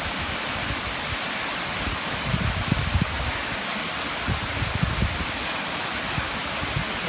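Mountain stream cascading down a rocky gorge: a steady rush of falling water. A few low bumps come through between about two and five seconds in.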